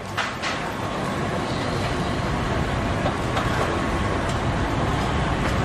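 Steady street noise with a low rumble of passing traffic and a few light clicks near the start.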